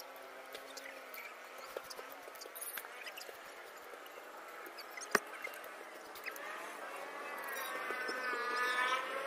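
Rustling and light clicks of a nylon camping tent and its pole sections being handled, with one sharp click about five seconds in. Faint voices rise in the background near the end.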